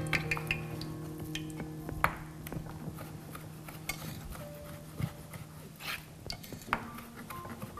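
Chef's knife slicing raw chicken breast into strips on a plastic cutting board, the blade tapping the board in irregular sharp knocks, the strongest about two seconds in. Soft background music underneath fades out about halfway through.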